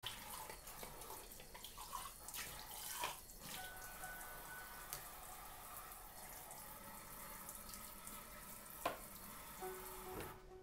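Faint water running from a kitchen tap into a sink, with several sharp clinks and knocks of dishes, the loudest about nine seconds in.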